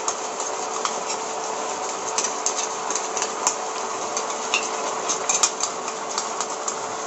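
Steel spoon clinking and scraping against a small stainless-steel container as watery green paste is rinsed out of it into a kadai, a run of sharp taps loudest about five seconds in, over a steady hiss.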